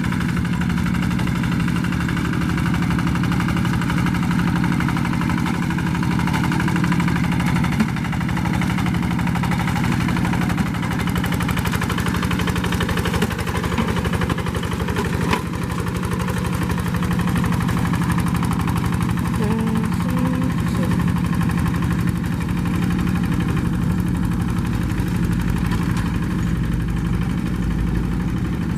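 Two-wheel paddy hand tractor's single-cylinder diesel engine running steadily.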